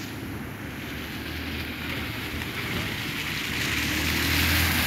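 Vehicle driving slowly on a wet, waterlogged road: a low engine rumble under the hiss of tyres and water. The noise grows louder toward the end.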